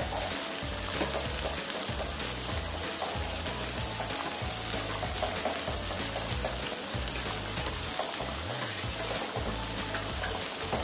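Sardine gravy with diced potatoes bubbling at a boil in a steel wok: a steady hiss with many small crackles.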